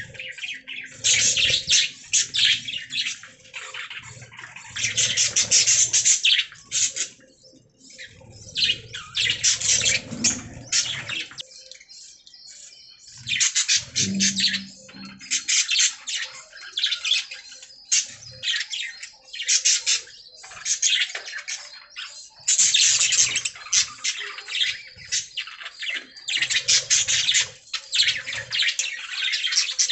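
Budgerigars chattering and chirping in quick bursts of warbling, scratchy calls, with short lulls around a third of the way in.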